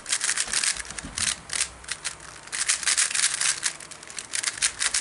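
Rubik's magnetic 3x3 speedcube being turned fast by hand: rapid runs of clicking, rattling layer turns that ease off briefly about two seconds in and thin out near the end.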